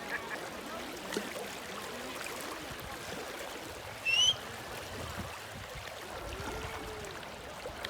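River water running steadily, with one short, high, rising whistle-like chirp about four seconds in.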